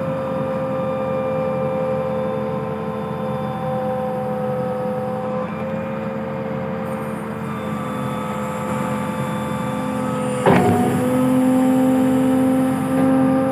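Backhoe loader's diesel engine running steadily while the boom is worked. About ten seconds in there is a sharp clunk, and after it the engine runs a little louder.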